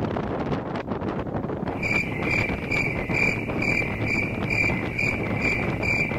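Wind buffeting the microphone, with a high-pitched chirp that starts about two seconds in and repeats about twice a second.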